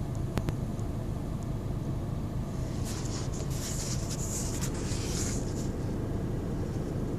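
2010 VW Golf BlueMotion's 1.6 TDI four-cylinder diesel idling roughly after starting. Two short clicks come shortly after the start, and a hissing rustle comes in the middle.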